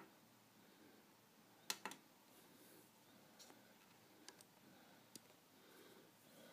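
Near silence broken by a few sharp clicks, two close together about two seconds in and fainter single ones later.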